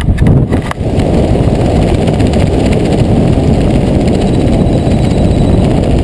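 Strong wind rushing over the camera microphone of a skydiver under an open parachute canopy, as a steady low rumbling rush, with a few crackles in the first second. The rush comes from the fast airflow of a steep carving turn under canopy.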